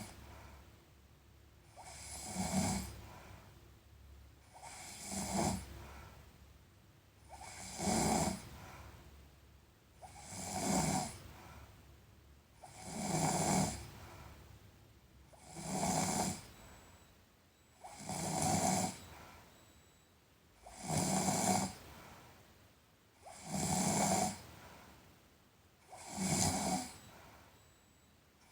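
A sleeping person snoring in a slow, even rhythm: about ten snores, one roughly every two and a half to three seconds.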